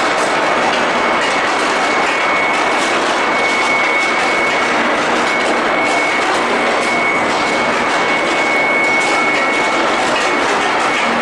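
Steady industrial noise of a steel-bar induction heating furnace and steel ball hot-rolling line running, with a constant high whine over a dense hiss.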